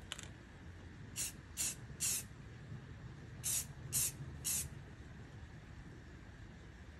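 Aerosol spray can of red paint spraying onto a paper leaf in short hisses: three quick sprays, then after a pause three more.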